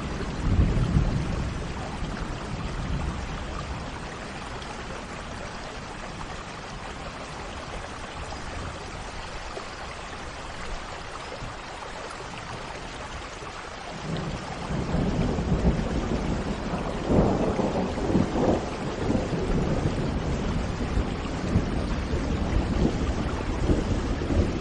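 Steady rain with thunder: a rumble about a second in, then a longer, louder rumble of thunder starting about fourteen seconds in and running on.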